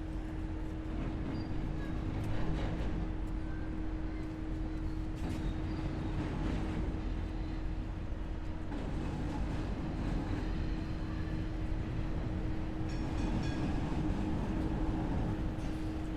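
Tram running along the street, with a steady low rumble and an even hum throughout.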